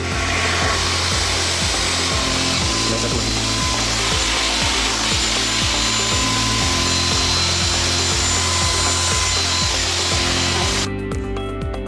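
Cordless stick vacuum running with a steady whooshing hiss and a faint motor whine. It cuts off suddenly near the end, over background music with a steady beat.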